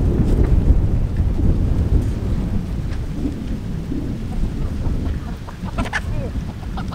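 Wind buffeting the microphone outdoors: a loud, uneven low rumble that eases off toward the end.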